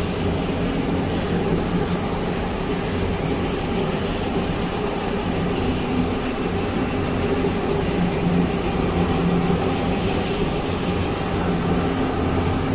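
Steady hum of factory machinery running, with a few low, even tones under a constant noisy rush and no breaks.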